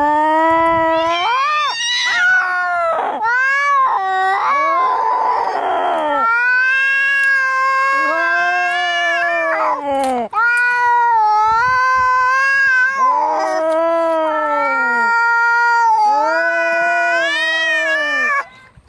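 Domestic cats caterwauling in a fight: long, wavering yowls that rise and fall in pitch, with a hiss about five seconds in.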